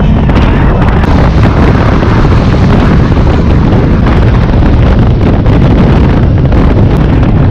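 Loud, steady wind noise buffeting the microphone of a camera on a moving motorcycle at road speed, with the rush of the ride underneath.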